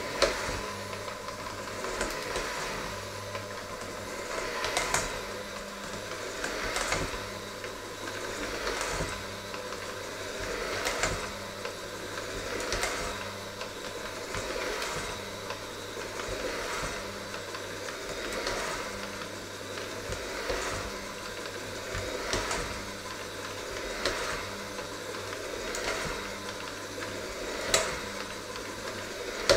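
Electric hand mixer running steadily, its beaters working through a thick mixture in a stainless steel bowl, the sound swelling about every two seconds as the beaters move around the bowl.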